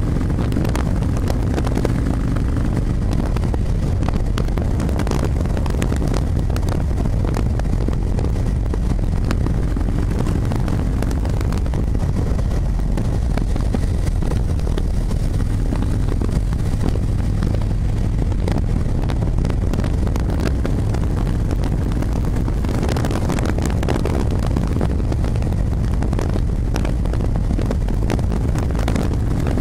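Motorcycle engine running steadily while riding, a low hum with wind noise rushing over the microphone.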